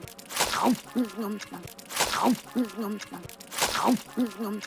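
Cartoon eating sound effects repeating three times, about every second and a half: a quick falling whoosh as a whole sub sandwich is crammed into the mouth, then a muffled, wavering full-mouthed hum.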